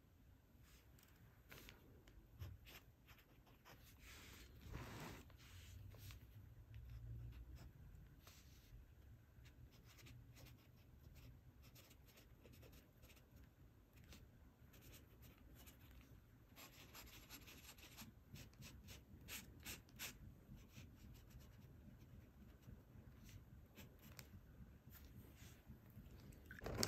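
Glass dip pen scratching faintly across notebook paper in short writing strokes, with small taps. A louder knock near the end.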